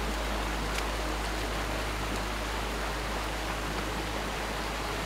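Steady rushing of water, an even hiss with a low steady rumble beneath and a few faint ticks.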